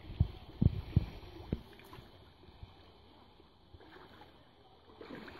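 Water sloshing and splashing as people wade through a shallow pond hauling a seine net: a few low splashes in the first second and a half, then quieter movement, with another splash near the end.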